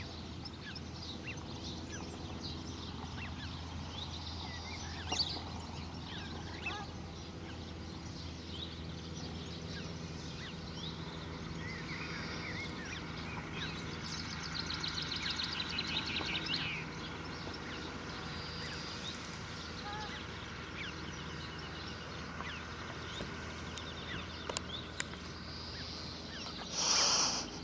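Birds calling in open-air ambience: scattered high chirps throughout, with a rapid run of ticking calls about halfway through, over a steady low hum. A short loud rush of noise comes near the end.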